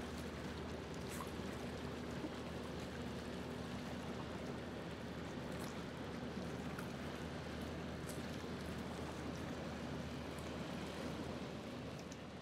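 Small waves lapping at a lakeshore, a steady wash of water with a low, even hum beneath it.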